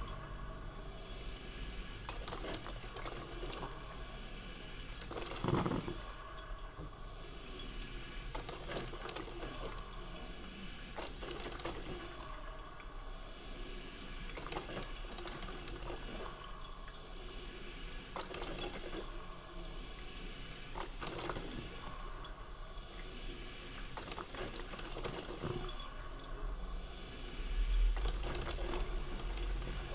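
Coffee maker brewing: water gurgling and bubbling over a steady hiss, with a surge every two to three seconds.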